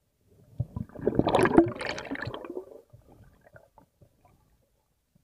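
Underwater bubbling and gurgling picked up by the camera as the diver rises toward the surface: a dense, crackly burst about half a second in that lasts about two seconds, then only faint scattered crackles.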